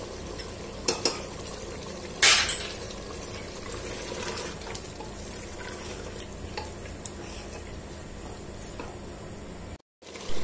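Wooden spatula stirring beef tripe in masala and yogurt in a pressure cooker, scraping and knocking against the metal pot over a steady sizzle of frying. A louder scrape about two seconds in, and the sound cuts out briefly near the end.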